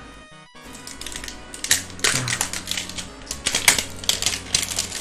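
Plastic shrink-wrap crackling and crinkling as it is handled and peeled off a Pokémon TCG tin, in quick irregular clicks that begin about a second and a half in. Background music plays underneath.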